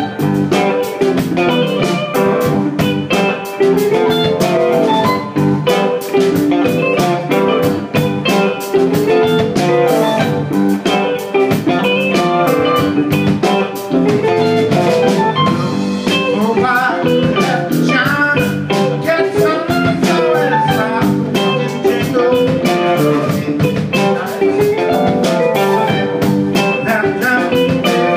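Live rock band playing: two electric guitars, keyboard, bass guitar and drum kit, with guitar lines over a steady drum beat.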